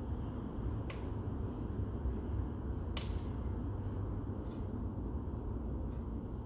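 Wood fire burning in a TMF Viziera clean-burning fireplace: a few sharp crackles and pops from the burning wood over a steady low rumble.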